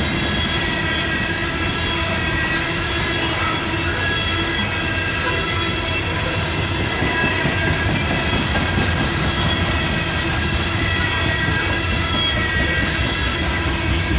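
Norfolk Southern coal train's hopper cars rolling past close by: a steady rumble and clatter of steel wheels on rail, with high thin squealing tones from the wheels that come and go.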